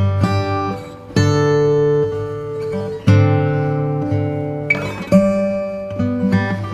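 Background music on acoustic guitar: strummed chords that change every second or two.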